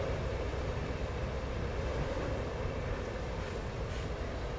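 Volvo articulated dump truck's diesel engine running under load as the loaded truck climbs a dirt ramp, a steady low rumble.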